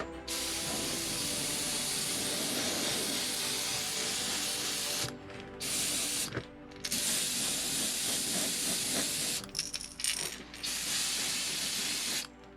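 Airbrush spraying paint onto a crankbait lure: a steady hiss in four long bursts with short pauses between them as the trigger is released, the last burst cutting off near the end.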